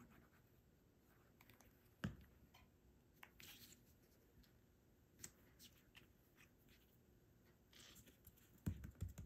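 Near silence, with faint handling of paper: a light tap about two seconds in, a few small ticks, and soft rustling near the end as fingers press a paper tab down onto a card.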